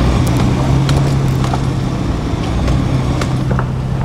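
A 1998 Jeep Cherokee driving slowly over a gravel road: a steady engine hum under a rough haze of tyre noise, with scattered small clicks and knocks from the gravel.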